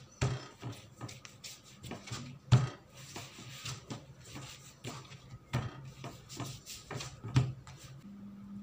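Hands rolling strands of bread dough on a plastic mat: soft rubbing with irregular light knocks, the sharpest about two and a half seconds in, over a low steady hum.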